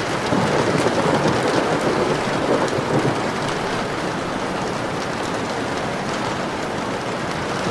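Steady rain falling, with a low rumble of thunder over the first three seconds or so.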